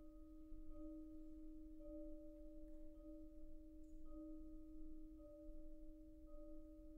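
Quiet single held note in a wind-ensemble performance, swelling slightly about once a second.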